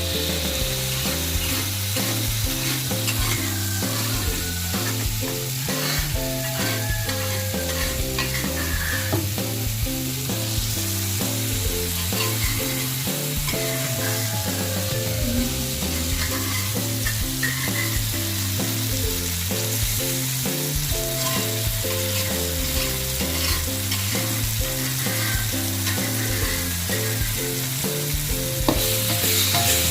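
Eggplant chili sambal sizzling as it fries in oil in a pan, with short scrapes as it is stirred. Background music with a repeating bass line plays throughout.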